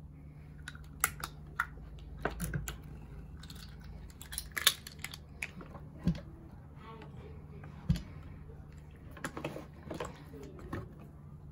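Irregular light clicks and taps, a dozen or so scattered unevenly, as of small objects handled on a tabletop, over a steady low hum.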